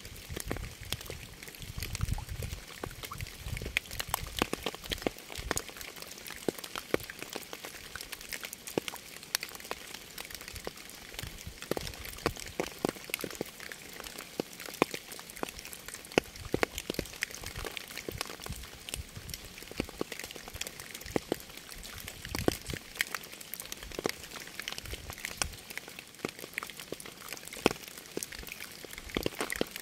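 Rain falling, with many sharp individual drops striking a surface at irregular intervals over a steady hiss.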